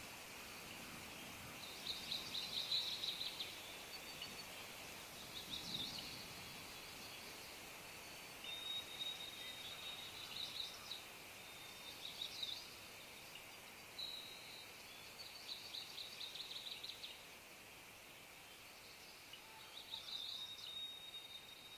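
Birds singing outdoors: short rapid trills repeated every couple of seconds, with a few thin held whistles, over a faint steady hiss.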